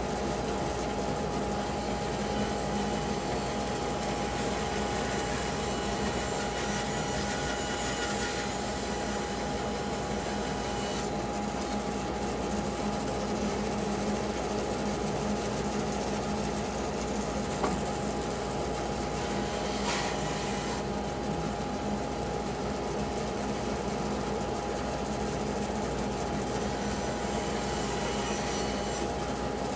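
Bandsaw running steadily, its blade cutting through a pecan log with a continuous rasping, rubbing sound over the steady hum of the machine.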